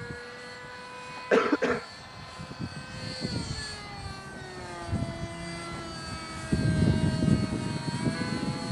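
Electric ducted-fan whine of a radio-controlled SkyAngel F-16 model jet in flight, its pitch gliding slowly downward through the middle and rising a little near the end. A brief loud noise breaks in about a second and a half in, and a low rumble rises near the end.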